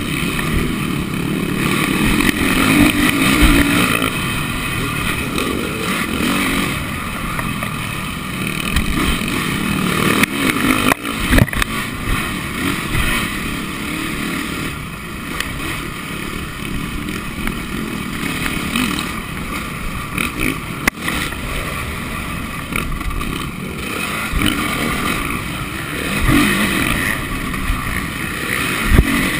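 Honda motocross bike's engine heard from a camera on the bike, its revs rising and falling as it is ridden hard round a dirt track. Three sharp knocks are spread through it.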